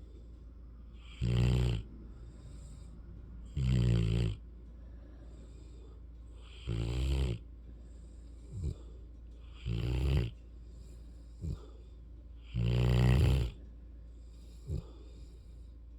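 Mastiff-rottweiler mix puppy snoring in its sleep: five loud snores about every two to three seconds, with short, fainter ones between them.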